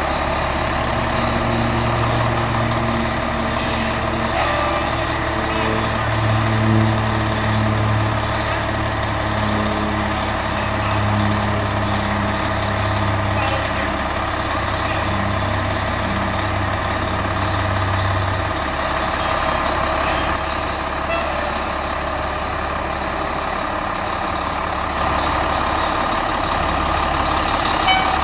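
A 1997 Pierce Lance fire engine's diesel engine idling steadily, with a few short hisses of air from its air brakes.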